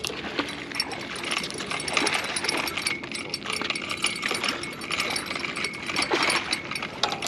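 Fishing reel being cranked to bring in a hooked fish, its gears clicking and whirring in a steady run.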